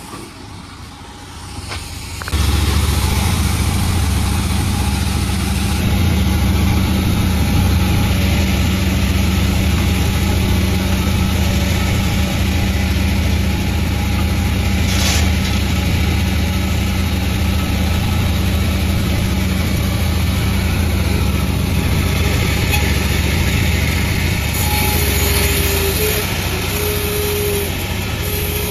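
Panda36 sawmill machine running with a loud, steady, low drone that comes in suddenly about two seconds in.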